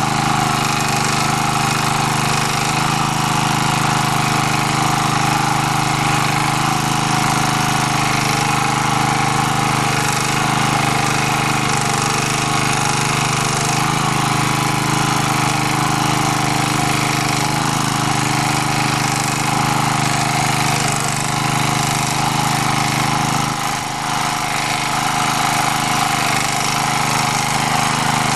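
MD3 walk-behind tractor's small engine running steadily under load while its rotary tiller cuts through garden soil in first gear, easing off briefly about three-quarters of the way through.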